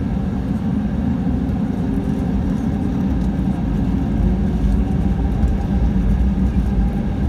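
Cabin noise inside an Airbus A320neo with Pratt & Whitney PW1100G engines running: a steady low rumble with faint steady hum tones above it, growing slightly louder about halfway through.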